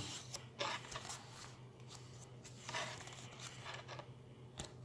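Magic: The Gathering trading cards being handled, faint: a few soft slides and rustles of card stock over a low steady hum.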